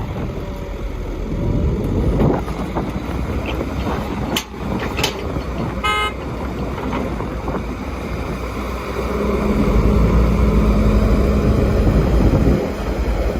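Heavy construction machinery engines rumbling, with a short horn toot about six seconds in. The engine grows louder from about nine seconds and then cuts back sharply shortly before the end.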